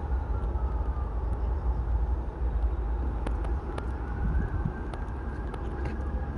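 Wind buffeting the phone microphone over the steady hum of distant vehicles, with a faint whine that slides down in pitch early on and rises again later, as from a passing train or car.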